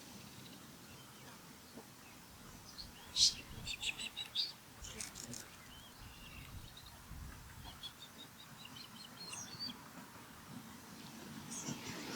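Ospreys calling: a burst of sharp, high whistled chirps about three seconds in, then a second, quicker run of short chirps about eight seconds in.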